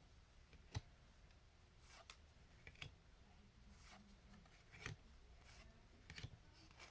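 Faint handling of trading cards: about six soft clicks and slides as cards are moved one by one through a stack, over a quiet room.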